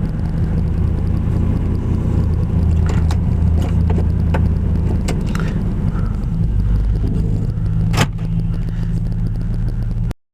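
Steady low rumble of a vehicle's engine and road noise heard from inside the cabin while driving, with scattered small clicks and rattles and one sharper knock about eight seconds in. The sound cuts off abruptly just before the end.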